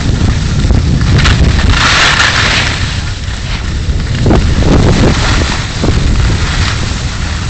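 Wind rumbling on the microphone of a camera carried downhill by a skier, over the hiss of skis sliding on packed snow. The hiss grows stronger about two seconds in.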